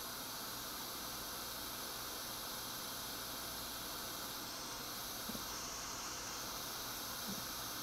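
Steady hiss of a hot air rework station blowing on a laptop board while a small capacitor is desoldered, with two faint ticks near the end.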